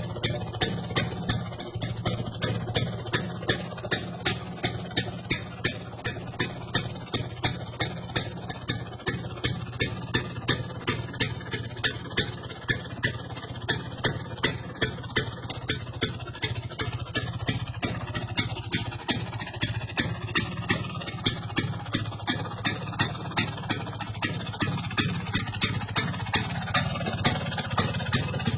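Vespa PX's single-cylinder two-stroke engine idling slowly and steadily, with a sharp regular pop about two or three times a second over the low running sound.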